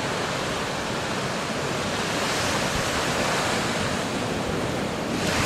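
Surf breaking and washing up a beach, a steady rushing wash that swells a little midway, with wind on the microphone.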